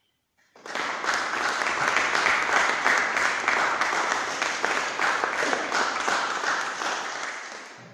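Audience applause after a short silence: dense clapping starts about half a second in, holds steady and fades near the end.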